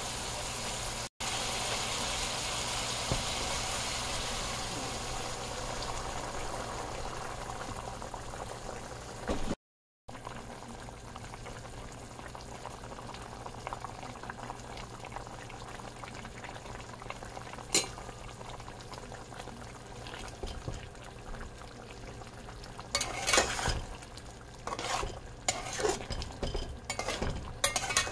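Green tomato and fish curry cooking in a stainless steel pot, with a steady sizzling hiss at first and then, after a break, a quieter simmer. Over the last few seconds a metal spatula scrapes and knocks against the pot as the curry is stirred.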